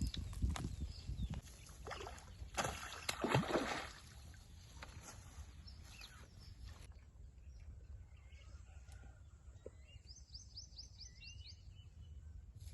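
Several loud rustling, handling noises in the first few seconds, then a quiet outdoor background in which a bird gives a quick series of about seven rising chirps about ten seconds in.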